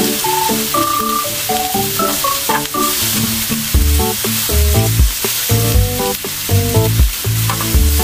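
Thin-sliced pork belly and kimchi sizzling on a tabletop grill pan, a steady frying hiss. Background music plays over it, with a melody and, from about halfway, a bass beat.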